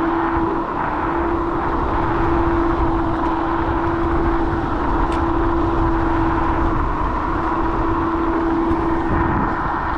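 Wind and road rumble from a small vehicle riding along a street, with a steady, constant-pitch whine running through it that drops out briefly about half a second in and again around seven seconds.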